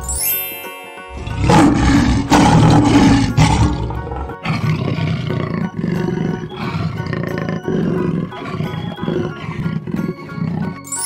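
Animated big-cat roar sound effects, lions and panthers, laid over background music. They are loudest about one and a half to four seconds in, and a rising swish effect opens the scene.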